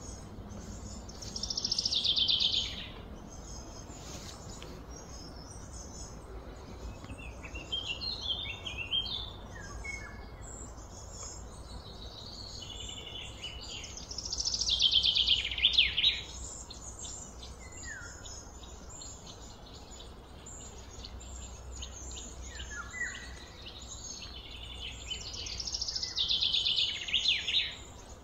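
Birdsong: a songbird repeats a short, rapid, descending trilled phrase three times, about twelve seconds apart, with a few quieter chirps in between. A steady low background rumble runs underneath.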